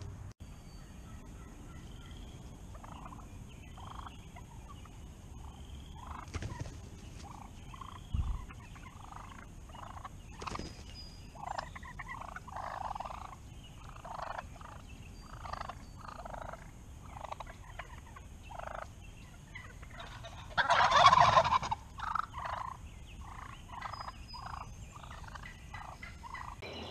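Wild turkeys calling close by: a steady run of short calls, one every half second to a second, and one louder call lasting over a second about three-quarters of the way through.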